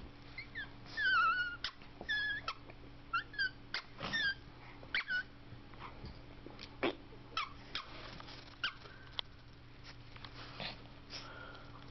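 Boston Terrier whining in a series of short, high, wavering whimpers during the first five seconds, with scattered sharp clicks through the rest.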